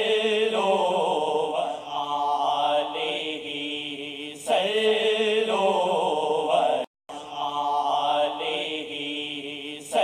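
Background vocal music: a chanted singing voice in slow, gliding phrases over a steady hiss. It cuts out briefly about seven seconds in, then picks up again.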